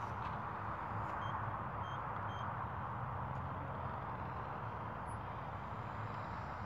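Distant radio-controlled model aeroplane flying aerobatics, its engine a steady faint drone. Three short, high beeps come about a second in.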